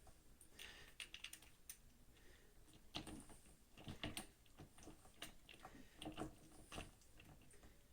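Faint scattered clicks and light taps of screws and small metal parts being handled while the screws are started into a wheelchair's dual-wheel hub, a little busier in the second half.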